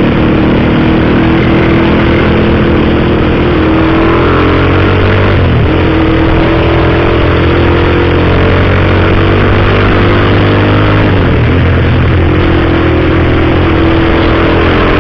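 Honda CBX 250 Twister's single-cylinder four-stroke engine running loud through a gutted exhaust with the baffle removed. The engine note rises slowly and drops sharply twice, about five and a half and eleven seconds in.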